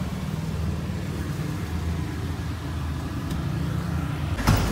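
Steady low hum of an idling engine, with a short knock near the end as the camera is bumped.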